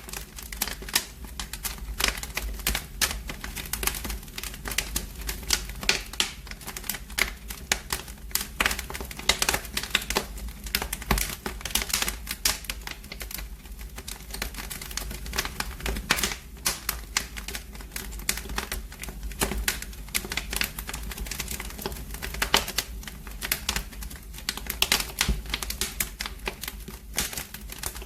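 Wood fire in a fireplace crackling, with irregular sharp snaps and pops over a low steady rumble.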